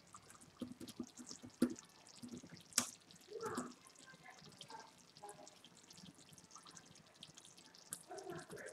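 Thick sloppy joe sauce of ground meat and tomato simmering in a pot, with faint, irregular plops and pops of bursting bubbles.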